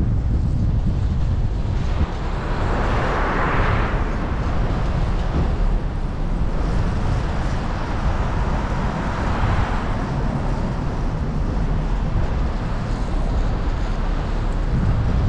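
Wind on a vehicle-mounted GoPro's microphone over a steady low road rumble while driving. A rushing swell comes twice, about three seconds in and again near ten seconds.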